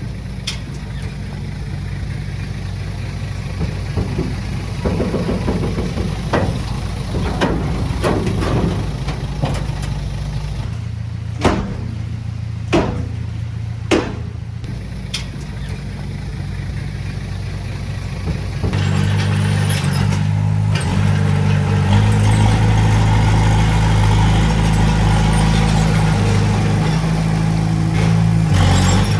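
Diesel engine of earthmoving machinery running steadily, with a few sharp knocks a little before halfway. A bit past halfway the engine gets louder and stays louder.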